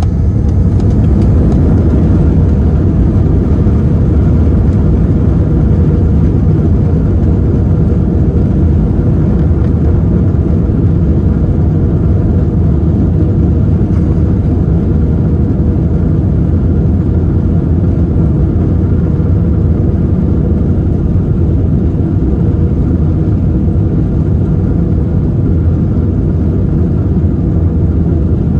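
Airbus A320 jet engines at takeoff thrust, with the rumble of the takeoff roll along the runway, heard from inside the cabin. The noise swells slightly in the first couple of seconds and then holds as a loud, steady roar.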